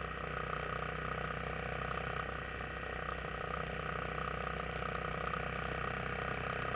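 Yamaha XT250 dual-sport motorcycle's single-cylinder four-stroke engine running at a steady pace while riding.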